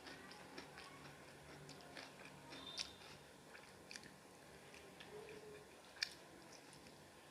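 Close-up eating sounds: a person biting and chewing masala-fried chicken leg meat, with soft wet mouth clicks and a few sharper crunches, the loudest one about six seconds in.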